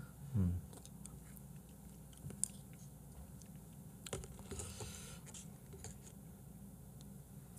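Quiet eating sounds: faint chewing with small clicks and taps of chopsticks and a small cup being handled, a short low hum just after the start and a brief rustle about four and a half seconds in.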